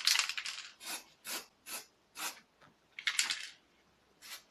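Aerosol spray paint can sprayed in short hissing bursts, about two a second, with longer sprays at the start and about three seconds in.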